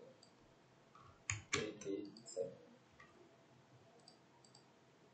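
Faint clicks from a computer keyboard and mouse: a cluster of louder keystrokes between about one and two and a half seconds in, then a few lighter clicks.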